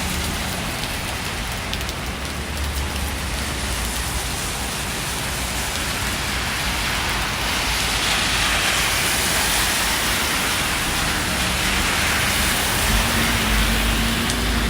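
Steady rain falling on a wet street, a dense even hiss that swells and fades around the middle. A low steady hum comes in near the end.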